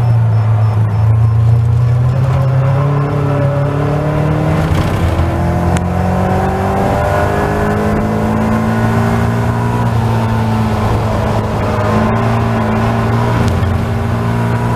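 Caterham Seven race car's four-cylinder engine at full throttle, heard from the open cockpit, revving up from about 3,500 to nearly 7,000 rpm as the car accelerates out of a corner. Its pitch climbs steadily, with wind rushing past.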